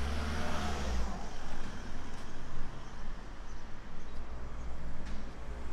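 Road traffic on a town street: a vehicle passes close in the first second and fades away, then a steady rumble of cars carries on.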